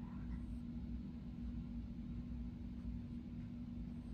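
Steady low hum of a cruise ship's machinery heard from inside a cabin: a low rumble with one constant droning tone over it.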